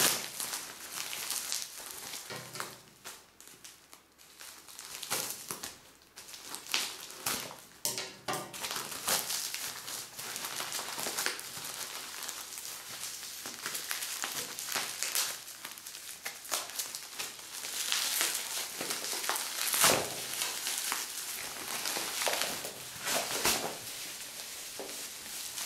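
Plastic courier mailer and bubble wrap being pulled apart and unwrapped by hand: irregular crinkling and rustling with frequent short crackles.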